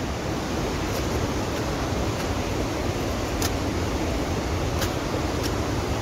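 Loud, steady rush of falling water from a waterfall, with a few faint clicks over it.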